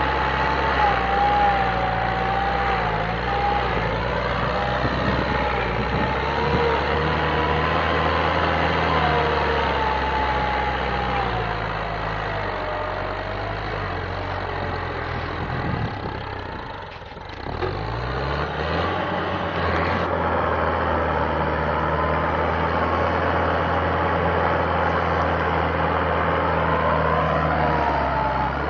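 Kubota M-series tractor's diesel engine running steadily under heavy load while pulling a mounted plough. About two-thirds of the way through the sound dips briefly, then the engine pitch climbs back up.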